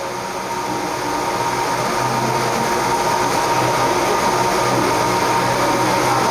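Steady machine hum with a rushing noise and a constant whine, growing a little louder over the first couple of seconds and then holding level.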